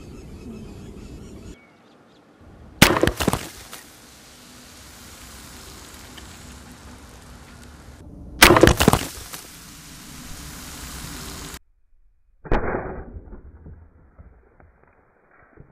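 An air rifle fitted with a steel ball bearing and a ring cap goes off three times, each a sharp crack with a brief trailing noise as the bearing bursts a row of drink cans. The cracks come about three, eight and a half, and twelve and a half seconds in, and the last is duller.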